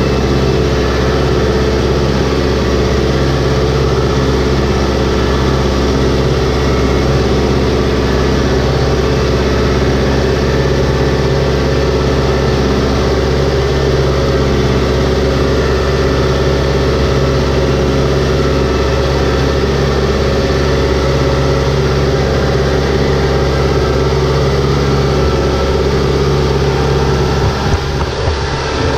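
Compact farm tractor's diesel engine running steadily under load as it drives through a flooded, muddy rice paddy, heard up close from the driver's seat. A short clatter near the end.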